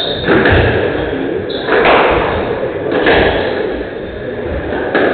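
Squash rally: the ball is struck by the rackets and hits the court walls, giving a series of sharp knocks with low thuds, roughly one every second or so.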